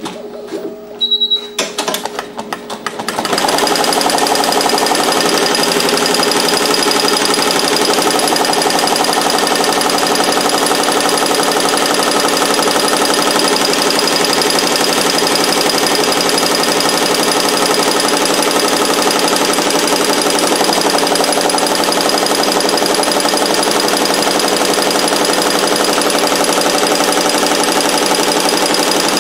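Barudan multi-needle embroidery machine stitching a cap. A few separate clacks over the first three seconds, then about three seconds in it settles into a steady, rapid stitching clatter at full speed.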